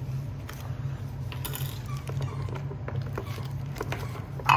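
Scattered small clicks and rattles of plastic toy-playset pieces being handled and rummaged through, over a low steady hum.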